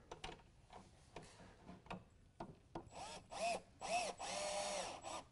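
Cordless drill with a square-drive bit driving screws into pilot holes. A few faint clicks come first. About three seconds in there are three short trigger blips, each spinning up and down, then a steady run of about a second that winds down near the end.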